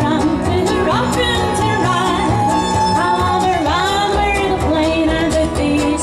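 Live country band: a woman singing, her voice sliding up in pitch several times, over small acoustic guitar, upright double bass and bowed fiddle.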